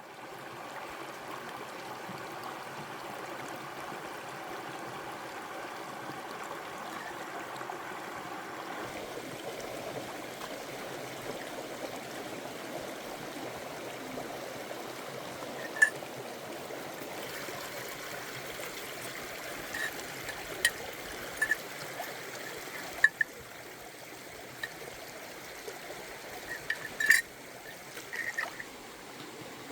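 Stream water flowing steadily over rocks, with a few sharp clicks and knocks now and then, mostly in the second half.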